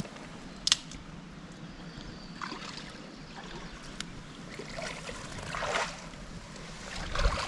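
Steady rush of a flowing mountain brook, with a sharp knock under a second in and a few brief scuffing, splashing noises later on.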